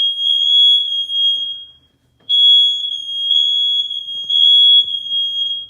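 Household smoke alarm sounding on test: one loud, steady, piercing high-pitched tone that breaks off briefly about two seconds in, then sounds again and cuts off near the end.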